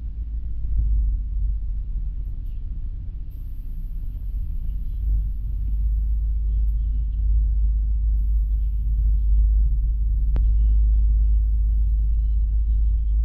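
Deep, steady rumble of a city bus in motion, the ride's vibration and road noise picked up by an action camera at the bus window, with a single sharp click about ten seconds in.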